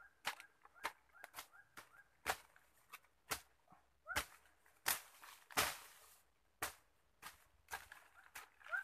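Irregular sharp snaps and cracks, with a few short splashy rushes, as hands work through twigs, brush and muddy water at a catfish hole. A few brief rising chirps sound between them.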